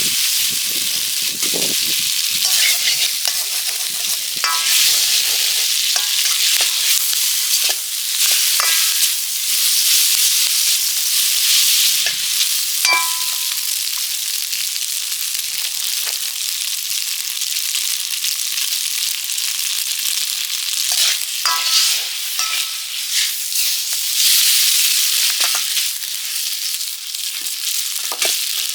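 Food frying and sizzling steadily in a wok while it is stirred, with short ringing clinks now and then.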